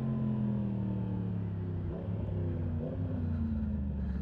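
Yamaha MT-10's crossplane inline-four engine running under way, its pitch sinking slowly as the bike eases off, with brief changes in the note about halfway through.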